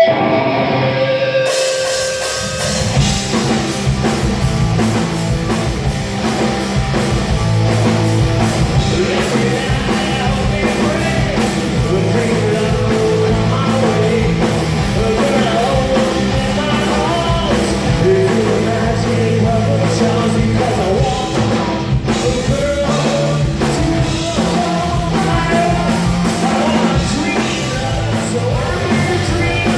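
Live punk rock band playing with singing: guitar, bass and drums, the drums and bass coming in about two seconds in after a lone guitar.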